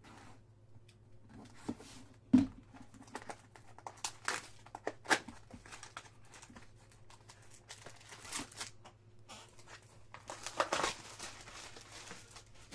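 Baseball card packs being opened by hand: a cardboard box slit open, then foil pack wrappers tearing and crinkling, with scattered light clicks and handling noises. A single sharp thump comes about two seconds in.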